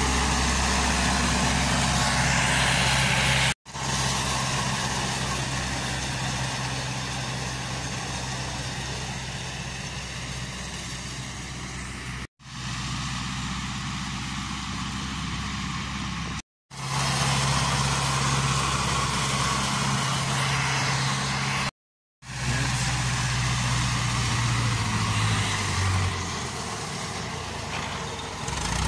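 Ursus C-360 tractor's four-cylinder diesel engine running steadily while mowing with a rotary mower, in several stretches separated by short silent cuts. It is quieter for a while in the middle, and near the end the engine note drops, then rises again.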